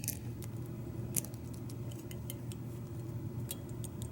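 Irregular small metallic clicks and scrapes of a shim and key blank being worked in a Schlage deadbolt's pin-tumbler cylinder while trying to shim it open, over a steady low hum.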